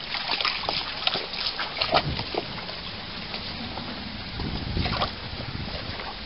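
A dog splashing through a shallow rocky stream, with water running and sloshing around it and many close knocks and rubbing sounds.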